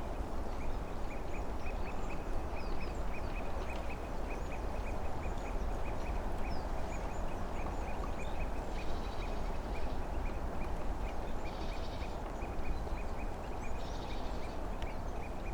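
Spring forest ambience: a steady rushing background with birds calling over it, one giving a fast, even run of short high chirps throughout, with scattered higher notes and three short trilled calls of about a second each in the second half.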